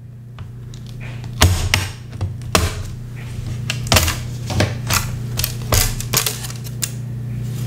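Bottom case of a Dell Latitude 7490 laptop being pried off around its seam with a small pry tool. A series of sharp, irregular clicks sounds as the case's clips snap loose.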